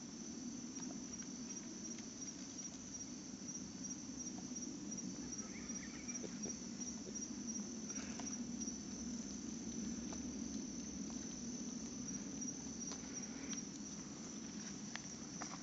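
Night insects trilling steadily in a high, pulsing chorus over a low steady rumble, with a few faint ticks.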